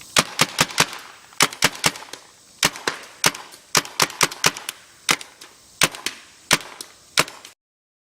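Tippmann Gryphon CO2 paintball marker firing about twenty sharp pops in quick strings of two to five shots. The sound cuts to dead silence shortly before the end.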